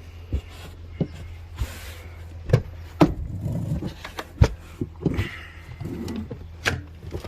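Irregular metal clicks and clanks from a jack rod turning a spare-tire winch to lower the spare, with about ten sharp knocks spread unevenly, over a steady low hum.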